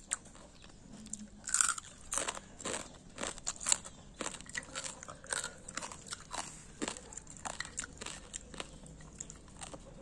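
Close-up chewing with many irregular crisp crunches, from a mouthful of a meal of cucumber, dried fish and fried tofu with sambal terasi. The loudest crunches come about one and a half seconds and nearly four seconds in.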